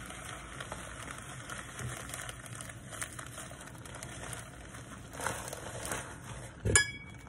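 Zip-top plastic bag crinkling and rustling as crushed Oreo cookie crumbs are shaken out of it into a glass bowl. Near the end, a single sharp knock with a brief ringing tone after it.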